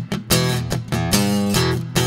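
Instrumental music led by strummed guitar chords over a bass line, in a steady, even beat.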